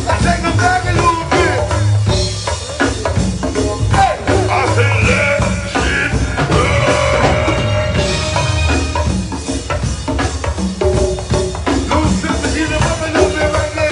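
Live go-go band playing: a steady drum and percussion groove with bass, keyboards and singing.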